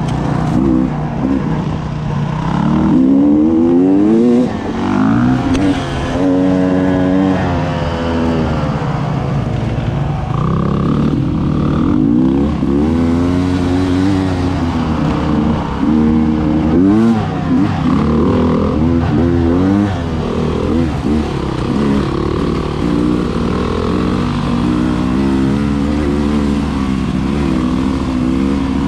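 2019 Beta 300RR Race Edition's two-stroke engine heard from onboard, revving up and falling back over and over as the dirt bike is ridden on the trail.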